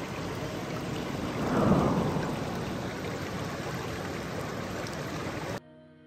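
Water of a shallow, rocky stream rushing over stones, close to the microphone: a steady rush that swells briefly about two seconds in. It cuts off abruptly near the end, leaving faint soft music.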